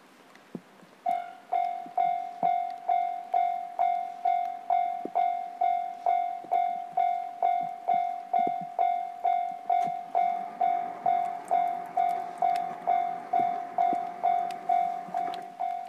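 Japanese level-crossing bell ringing steadily, about two strikes a second, warning of an approaching train. From about ten seconds in, a faint low rumble joins under the bell.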